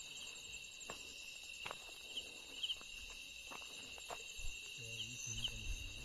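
Crickets and other insects chirping steadily in a forest at night, with a few soft crunches of footsteps through dry leaves and undergrowth.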